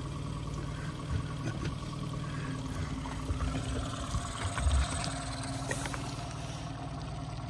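Boat motor running steadily at low trolling speed: an even hum with a fainter, higher steady whine over it, and a brief low knock a little past halfway.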